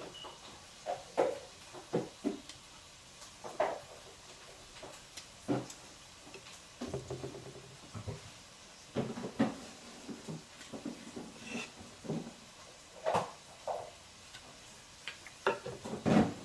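Irregular knocks, clicks and clatter of hard objects being handled and set down, about fifteen separate strikes with a couple of short rattling stretches.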